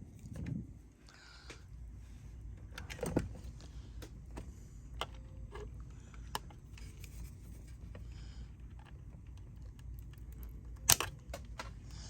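Scattered small clicks and light metallic rattles of tools, wire and parts being handled at an electronics workbench after a solder joint, with one sharper click near the end, over a faint low hum.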